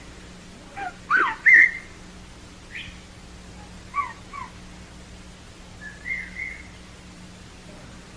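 A series of short whistle-like calls and squeaks, each a quick glide up or down in pitch, scattered over several seconds; the loudest pair comes about a second and a half in.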